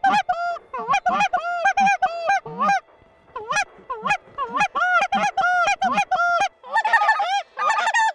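Snow goose calls: a rapid run of high, yelping honks, about three a second, with a brief pause about three seconds in and several calls overlapping near the end.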